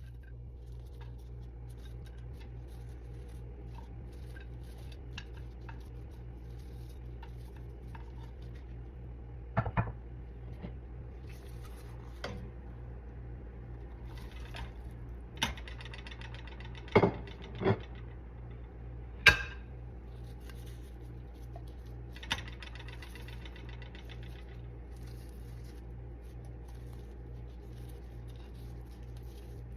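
Cookware and utensils clinking and knocking now and then, a handful of sharp strikes between about ten and twenty-two seconds in, over a steady low hum.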